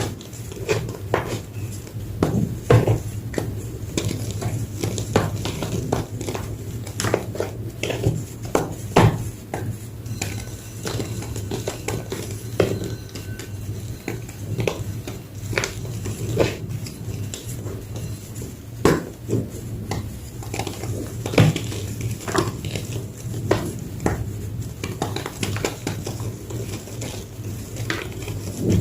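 Large slabs of gym chalk being crunched and crushed, giving irregular sharp crunches and crackles one after another.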